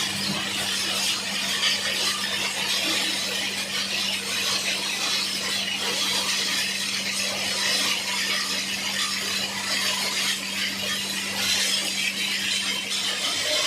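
Plastic (PP/LD) washing machine with a 15 hp electric motor running: a steady hum under a dense, even hiss.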